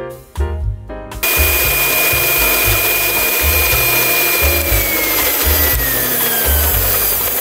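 Piano music, then about a second in an electric stand mixer starts up, its beaters creaming butter and sugar in the bowl. The motor runs with a steady whine whose high tone slides lower after a few seconds, over soft background music.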